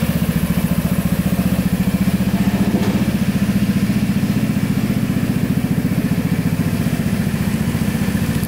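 A Vespa GTS 250 scooter's single-cylinder four-stroke engine idling steadily, with an even, rapid pulsing beat.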